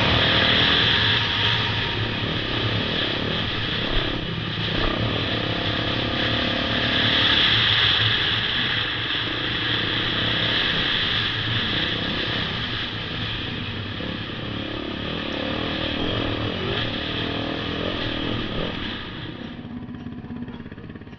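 Beta 480RR four-stroke single-cylinder dirt bike engine running under throttle on a trail ride, growing quieter near the end.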